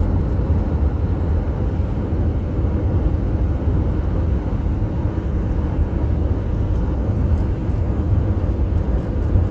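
Steady road and engine noise of a car travelling on the highway, heard from inside the cabin: a continuous deep rumble with an even hiss above it.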